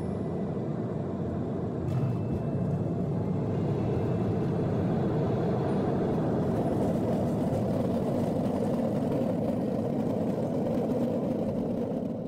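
Jet airliner cabin noise during the landing rollout: a steady rumble from the engines and the wheels on the runway. It grows louder about two seconds in and holds as the aircraft decelerates.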